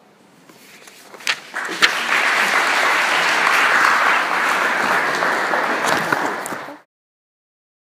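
Audience applauding: a few single claps about a second in swell quickly into steady applause, which cuts off suddenly near the end.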